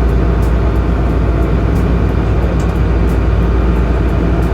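Pleasure boat's engine running steadily, heard on board as a loud, even drone with a constant hum.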